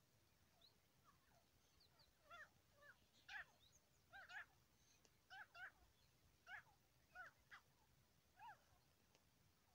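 Grey francolin giving faint, short call notes that bend up and down in pitch, singly and in quick pairs about a second apart. The notes are strongest a few seconds in.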